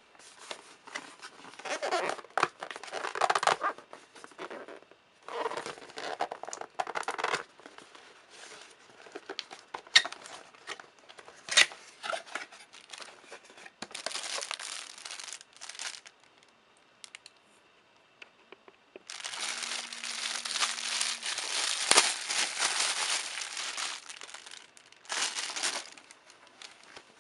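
Cardboard lens box being opened and the plastic wrapping inside crinkling as it is handled, in irregular bursts with a few sharp clicks. A longer spell of continuous crinkling comes about two-thirds of the way through.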